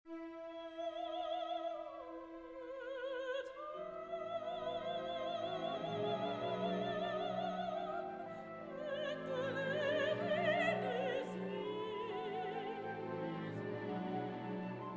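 Operatic singing with strong vibrato over an orchestral accompaniment; the lower instruments come in about four seconds in.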